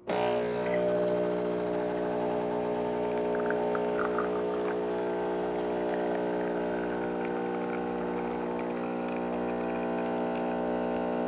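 DeLonghi Magnifica's vibratory water pump buzzing steadily as it pushes hot water through the brew unit to pull a shot of espresso. The pump starts abruptly.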